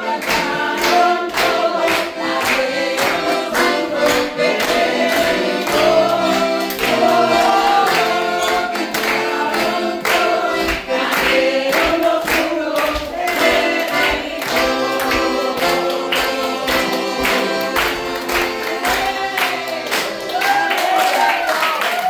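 A group of people singing a worship song together, clapping their hands in a steady rhythm.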